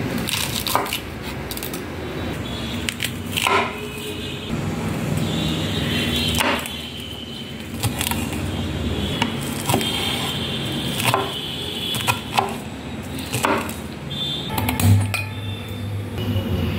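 Chef's knife chopping squash blossoms on a wooden cutting board: irregular single knocks of the blade against the board, a second or two apart.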